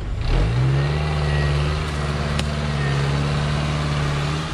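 Off-road vehicle's engine revving up sharply just after the start, then held at steady high revs under load.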